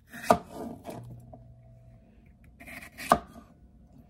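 Kitchen knife slicing a mini bell pepper on a plastic cutting board: the blade knocks sharply on the board twice, about three seconds apart, each time with a short burst of cutting noise.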